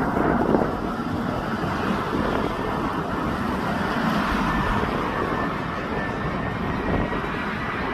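Twin-engine jet airliner on final approach with its landing gear down, its engines giving a steady rushing rumble. About halfway through, a thin high engine whine comes in over the rumble.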